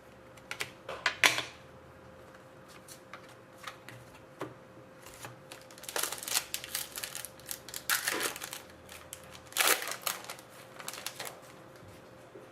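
Trading cards and their packaging being handled: irregular rustles and light clicks, bunched in several short flurries. A faint steady hum runs underneath.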